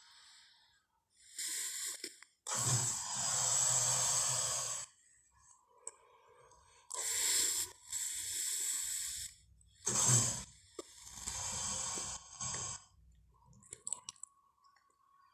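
Spinosaurus creature sound effect built from dragon and crocodile sounds: a run of about five breathy growls and hissing roars with short pauses between. The longest call, with a low rumble under it, comes about two and a half seconds in.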